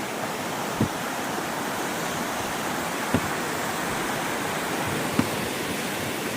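Steady rush of flowing water, with three brief faint knocks about one, three and five seconds in.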